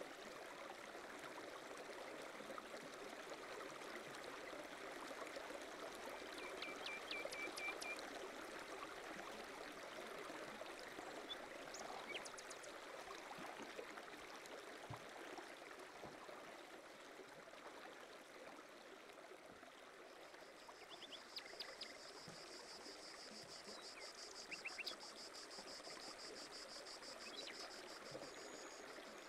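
Small ripples lapping and trickling against a rocky pond shore, a faint steady watery wash. High, thin trills sound over it: a short one about a quarter of the way in and a longer one through the last third.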